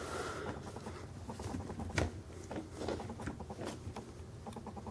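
Faint handling noise of a die-cast model excavator being turned over in the hands: light rubbing and scratching with scattered small clicks, the sharpest about two seconds in.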